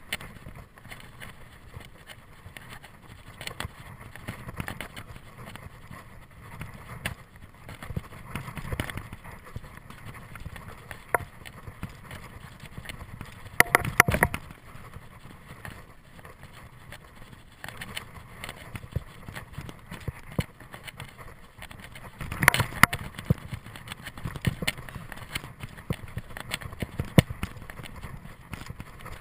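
Mountain bike riding fast down a dirt singletrack: tyres on dirt with a steady run of rattles and clicks from the bike over bumps. Louder clattering jolts come about 14 seconds in and again about 22 seconds in.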